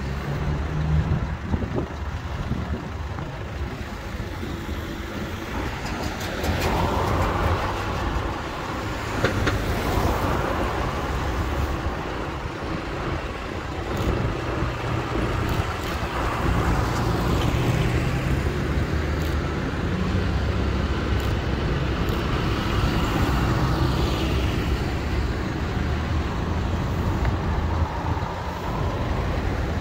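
Tractors and cars driving past one after another: the low drone of tractor diesel engines under the hiss of tyres on a wet road, each swelling and fading as a vehicle passes.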